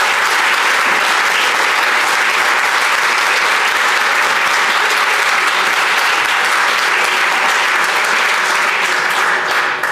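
Large audience applauding steadily, dying away just before the end.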